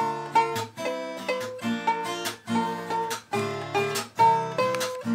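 Ukulele strummed, playing a run of changing chords at about two to three strokes a second, with lower string notes sounding beneath it.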